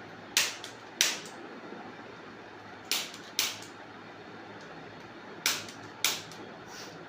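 Chiropractic adjusting gun firing: six sharp clicks in three pairs, each pair about half a second apart, with about two and a half seconds between pairs.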